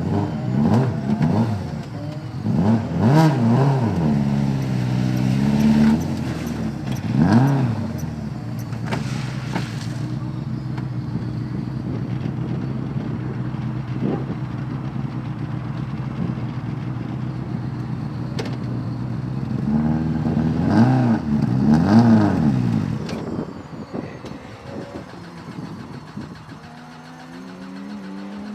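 Rally car engine revved in repeated sharp blips, settling to a steady idle for several seconds between them, with another run of blips about twenty seconds in before the sound drops away.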